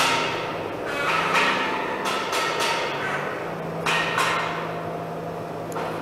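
Pliers bending and knocking a thin metal scale pointer against the sawmill's steel frame. A few sharp metallic clinks, each ringing briefly, come in clusters at the start, about a second in and about four seconds in, over a steady low hum.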